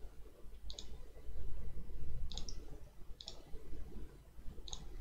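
Computer mouse clicking: four separate sharp press-and-release clicks spread over a few seconds, over a faint low hum.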